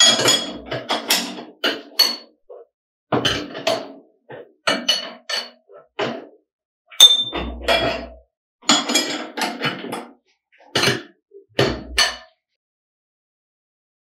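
Steel wrench clinking and knocking on the tie-bolt nuts of a plate heat exchanger frame as the nuts are tightened to close up the plate pack: irregular bursts of sharp metallic clinks, some ringing briefly.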